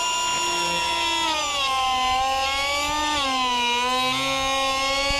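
Die grinder running at speed with a steady high whine as its bit cuts into the wood, the pitch dipping twice as the bit is pressed in and loaded.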